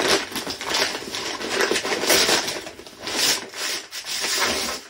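Packaging rustling and rubbing in irregular surges as a wrapped shotgun barrel is unwrapped and pulled from its box.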